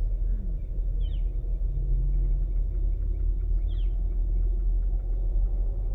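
Outdoor desert ambience: a steady low rumble with two short, faint high bird chirps, about a second in and near four seconds, over scattered faint ticking.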